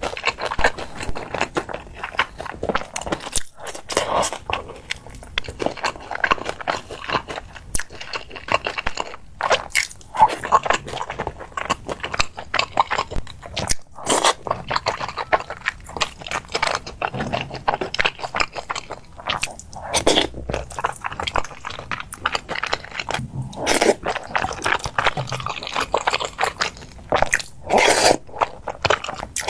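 Close-miked chewing and crunching of crisp food, a continuous run of bites and crackles.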